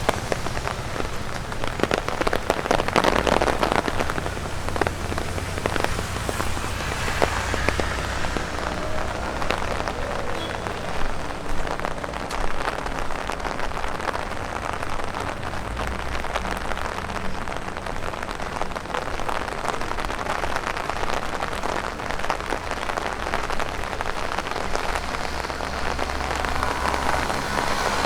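Steady rain with a dense patter of drops tapping on an umbrella over an even wet hiss.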